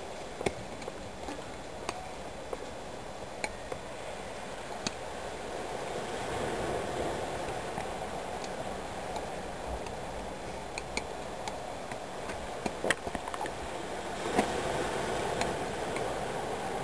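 Nunchaku being twirled and swung: scattered sharp clicks and clacks of the sticks and chain, over a steady rushing noise that swells twice.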